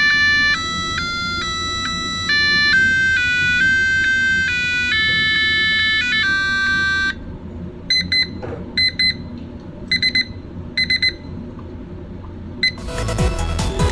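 Mr. DIY digital alarm clock playing its built-in alarm tones: a beeping electronic melody, then, after a short pause, short double beeps repeating about once a second. Near the end a louder, fuller electronic tune cuts in.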